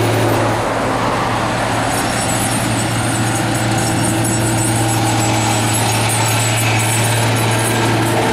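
Heavy diesel farm machinery running steadily at a constant engine speed, with a strong low hum.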